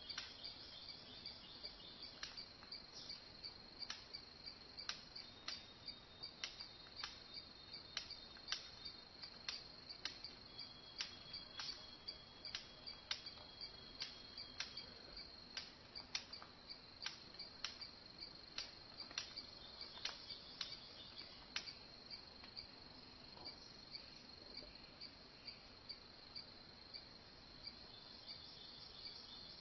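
Faint insect chorus: a steady high-pitched trill with sharp chirps about twice a second that thin out in the last third.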